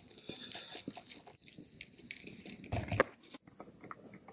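Handling noise of a phone being set down and propped on a table, with small clicks and rustling as a backpack is rummaged through, and one louder knock about three seconds in.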